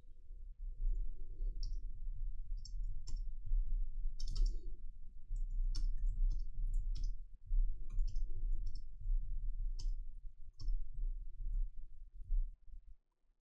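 Scattered, irregular light clicks from working a computer at the desk, over a low steady rumble.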